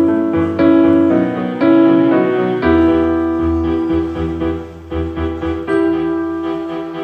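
Background music led by piano, single notes struck every half second or so, with a low bass note coming in about three seconds in.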